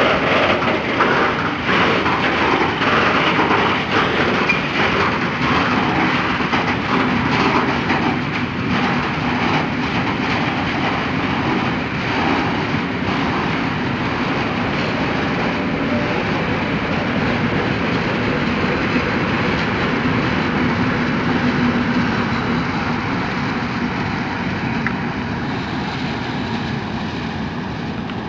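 Heavy coal-loaded freight train hauled by several diesel locomotives pulling out, its hopper wagons' wheels clacking over rail joints, most densely in the first half. A steady low hum from the diesel locomotives runs under it and is strongest as they pass near the end.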